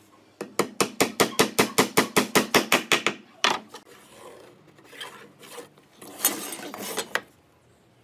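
Claw hammer tapping quickly on a pine-board cabinet, about six even strikes a second for some two and a half seconds, then one more single knock. A short scraping rub follows near the end.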